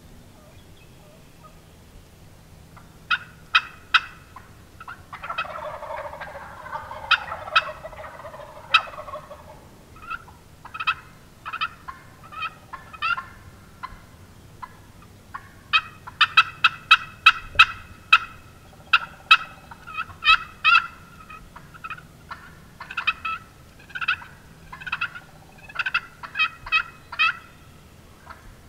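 Wild turkeys calling: runs of sharp, rapid yelps and cutts coming in bursts, with a longer rattling gobble stretch about five seconds in.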